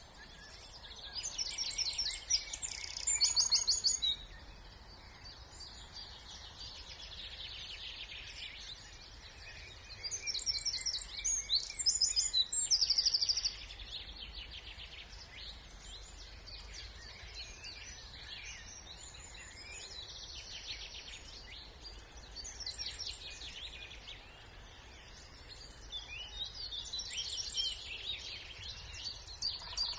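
Songbirds singing: one bird close by repeats a loud song phrase of about three seconds, a fast series of high notes ending in a flourish, about every ten seconds, over quieter birds and a faint low rumble of distant noise.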